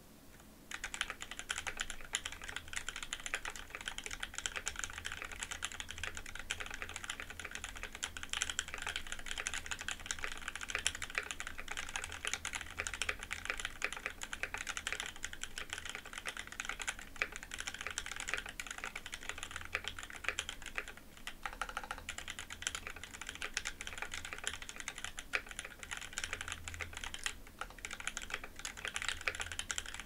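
Continuous typing on a KBD75v1 custom mechanical keyboard built with a brass plate, Seal switches on 78 g springs and ABS keycaps, tray-mounted with no sound dampening: a musical clack with real sharpness on some hits. The typing starts about a second in and eases briefly near the twenty-second mark.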